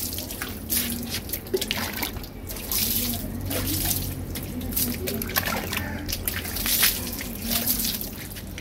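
Water poured over a motorcycle's rusty steel rear mudguard and tyre, splashing and dripping off the metal in an uneven patter.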